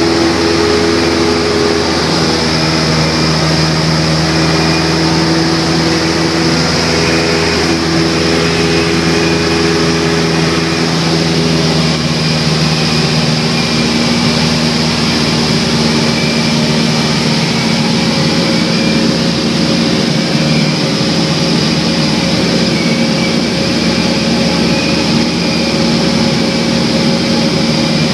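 Piston engine and propeller of a single-engine light aircraft droning steadily in flight, heard from inside the cabin. The mix of its tones shifts slightly about twelve seconds in.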